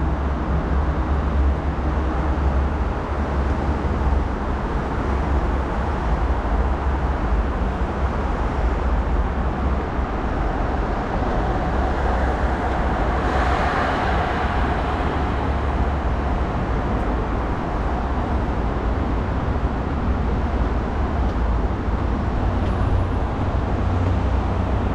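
Steady road traffic noise with a heavy low rumble. One vehicle swells past about halfway through.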